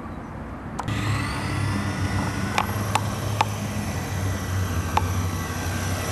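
Battery-powered radio-controlled model helicopter's electric motor and rotors spinning up about a second in, the whine rising briefly and then running steadily as it hovers just above the ground. A few sharp clicks sound in the middle.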